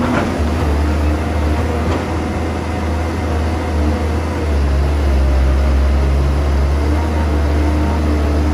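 Caterpillar 320B excavator's diesel engine running steadily under hydraulic load as the machine swings. The engine drone grows louder about halfway through, and there is a faint knock near the start.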